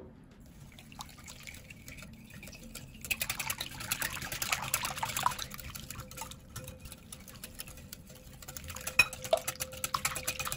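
Wire whisk beating a thin, milky egg-and-sugar mixture in a glass bowl: rapid wet sloshing and stirring, faint at first and much busier from about three seconds in.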